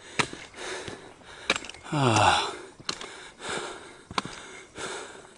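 A walker breathing hard, with footsteps about one every second and a quarter. About two seconds in there is a voiced sigh that falls in pitch.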